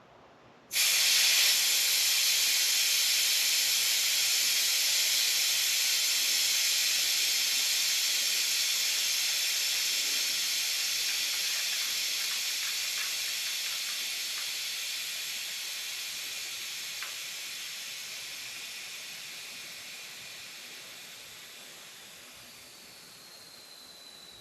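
Air hissing out of a 29-inch BMX bike tire's inner tube through its valve as it is let down. The hiss starts suddenly about a second in and slowly fades as the pressure drops, with a faint high whistle joining it near the end.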